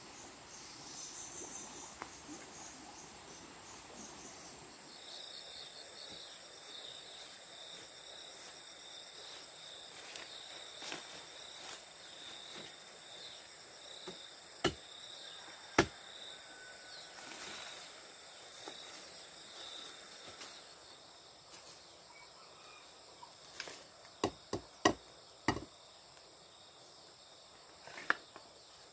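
Insects chirring steadily, a high pulsing trill, with occasional scattered knocks. Near the end comes a run of sharp blows, a blade chopping into a bamboo stem.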